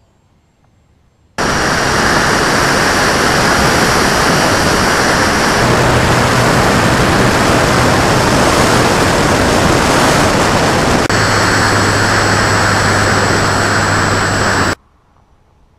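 Loud, steady rush of wind and propeller noise on the onboard camera of an FMS Cessna 182 electric RC model plane in flight, with a steady high whine over it. It starts abruptly about a second and a half in, changes abruptly twice, and cuts off abruptly near the end.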